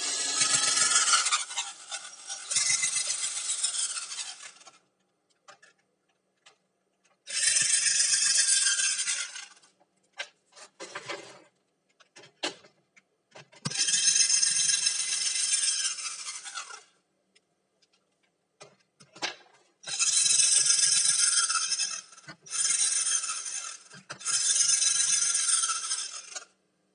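Cordless drill-driver running in about seven bursts of one to three seconds each, backing screws out of a laptop's plastic bottom case, with small clicks between the runs.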